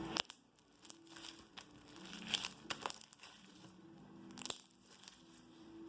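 Scattered crackles and clicks of green slime being squeezed and stretched by hand.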